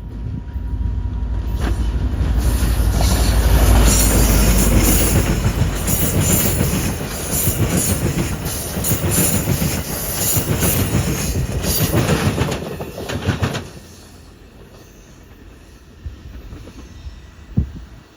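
Train rolling past over jointed rail, its wheels clicking rapidly over the rail gaps with a high metallic hiss, loud for most of the time, then dropping off suddenly to quiet, with a single sharp click near the end.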